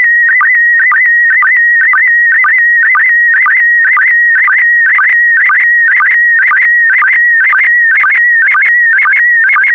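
Slow-scan TV (SSTV) signal in PD120 mode: a warbling tone near 2 kHz, broken about twice a second by short, lower sync pulses, as an image is sent line by line.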